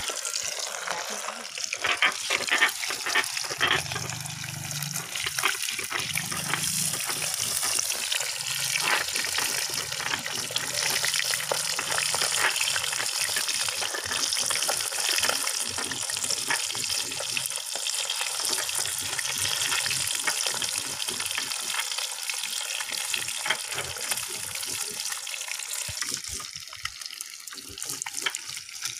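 Spice-coated fish frying in hot oil in a kadhai: a steady sizzle with scattered pops and crackles.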